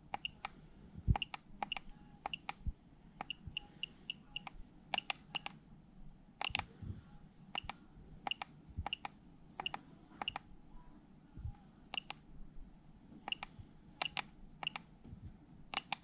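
Small push-button clicks on a MINI60 HF antenna analyzer, pressed over and over at an uneven pace, sometimes several in quick succession, as the analyzer is stepped through its settings.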